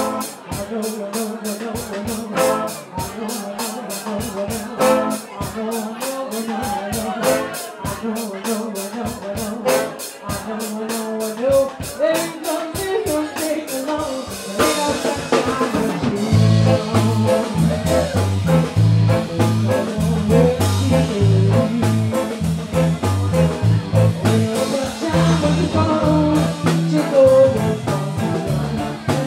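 Live band playing a slow blues-soul song: drum kit keeping a steady ticking cymbal beat with electric guitar, and a bass line coming in about halfway through.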